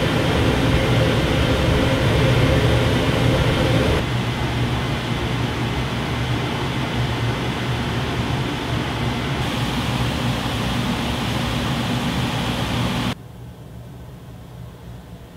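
Kitchen range hood blowers running with a steady rush of fan noise and a low hum, in back-to-back test recordings that cut abruptly from one to the next about four, nine and thirteen seconds in. The last one is much quieter.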